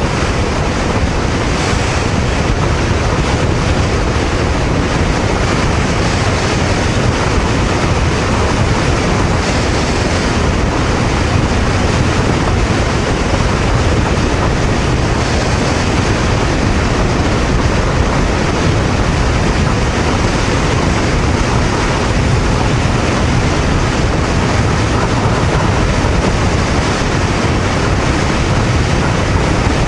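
Steady wind noise rushing over the microphone of a Honda VTR250 motorcycle cruising at about 100 to 107 km/h on an expressway. The bike's running and road noise sit beneath it.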